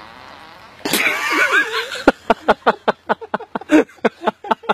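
Loud laughter. A high, squealing burst comes about a second in, then from about two seconds in it breaks into quick bursts of about four to five a second.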